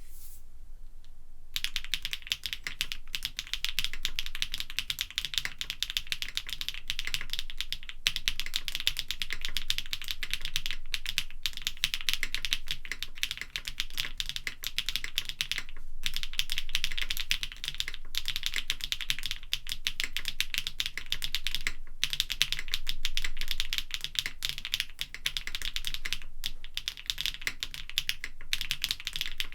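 Continuous fast typing on a KBDfans Tiger80 Lite mechanical keyboard with factory-lubed HMX Windlight linear switches on a polypropylene plate and CMK keycaps: a dense run of keystroke clacks starting about a second and a half in, with brief pauses now and then.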